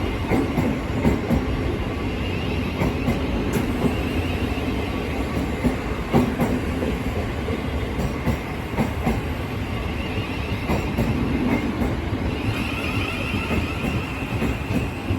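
Thameslink Class 700 electric multiple unit moving through the station, a steady rumble of running noise with wheels clicking over the rail joints.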